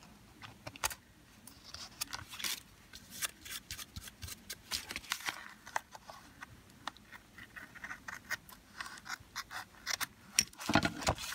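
Scissors snipping thin tissue paper along the edge of a cardstock piece: a scatter of small, sharp snips, with a louder cluster of clicks near the end.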